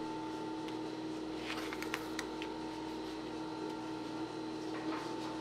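A steady hum with a few light clicks and taps about halfway through.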